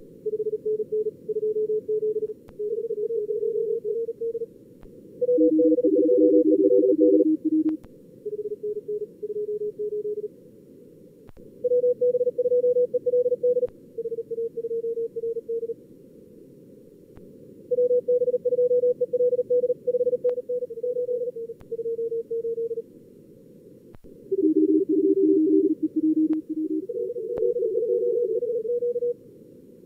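Simulated Morse code (CW) contest traffic from SkookumLogger's practice mode: fast keyed tones at several pitches, about 300 to 500 Hz, in bursts with short gaps, sometimes two or three stations sending at once. Under them runs a steady hiss of simulated band noise, narrowly filtered.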